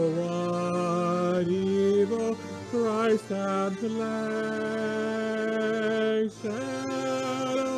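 Church hymn music with long held chords, the notes changing every second or two, with short breaks between phrases.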